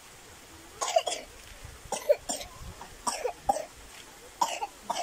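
A person coughing repeatedly: four bouts of short, sharp coughs about a second apart, each of two or three quick coughs.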